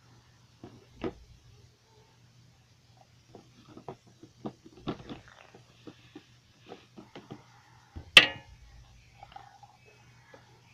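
A fleece cloth swept over small toys: cloth rustling and little plastic objects knocking and clattering in irregular clicks, with one sharp clack about eight seconds in. A faint steady hum runs underneath.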